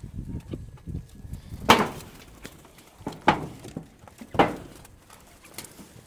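A hand-held bird beating its wings in three short, sudden flurries, the first the loudest, over rustling handling.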